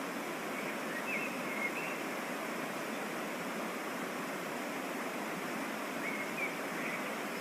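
Waterfall and mountain stream: a steady, unchanging rush of falling and running water.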